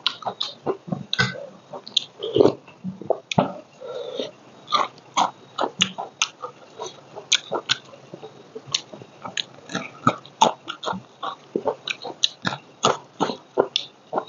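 A person eating by hand, close to a lapel microphone: chewing rice and biting raw green chillies, heard as a fast, irregular run of wet mouth clicks and smacks.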